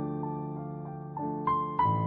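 Background piano music: a melody of single notes, struck about every third of a second over held lower chords, with louder notes near the end.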